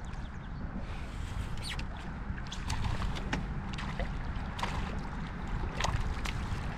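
Canoe on moving river water: a steady low rumble, with scattered sharp clicks and ticks.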